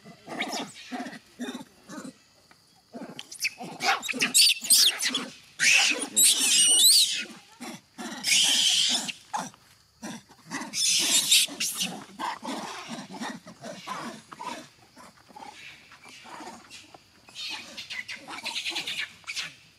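Macaque monkeys fighting over food: short grunting calls throughout, broken by several loud bouts of shrill screaming.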